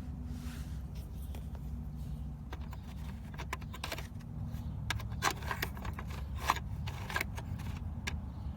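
A run of sharp clicks and rattles of hard objects being handled, over a steady low hum.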